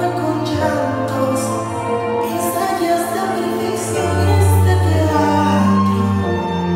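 Bachata song playing, with singing over sustained instrumental notes; the bass line becomes fuller about four seconds in.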